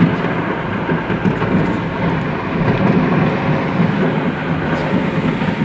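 Dense, continuous crackling and rumbling of many fireworks going off at once.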